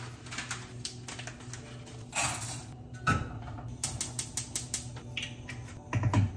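A gas stove's spark igniter clicking rapidly, about seven clicks a second, as a burner knob is turned to light it, among a few kitchen knocks and a brief rustle.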